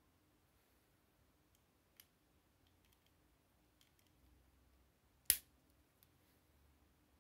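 Plastic Lego bricks being pressed together by hand: a few faint clicks and one sharp snap about five seconds in, otherwise near silence.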